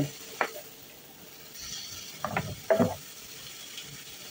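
Wooden spoon scraping and stirring shredded vegetables in a frying pan, a few short scrapes over a faint sizzle.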